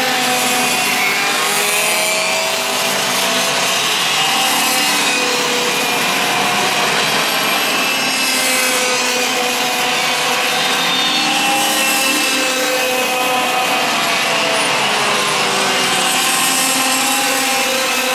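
Several two-stroke racing kart engines running together around the circuit. Their buzzing pitches rise and fall independently as the karts accelerate out of and brake into the corners.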